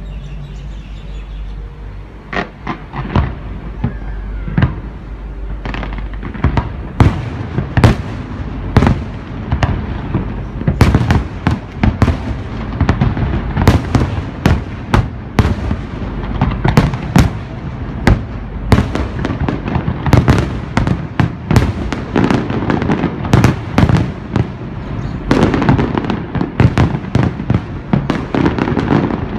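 Fireworks display: a few scattered bangs at first, then shells bursting in quick succession, several a second. Near the end it builds into dense bangs and crackling.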